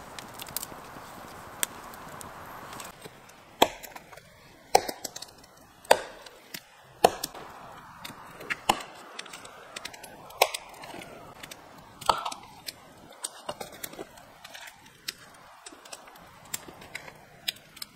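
Wood being chopped: sharp, irregular strikes about a second apart, starting a few seconds in.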